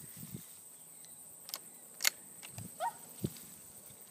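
Quiet open-air background broken by a few short, sharp clicks and knocks, the sharpest about two seconds in, with a brief chirp a little before the three-second mark.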